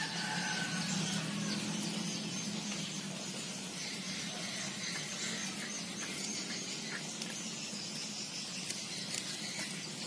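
Steady low hum under a constant background hiss, with no distinct event.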